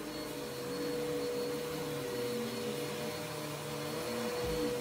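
Upright vacuum cleaner running while being pushed across carpet: a steady rush of air with a constant motor hum.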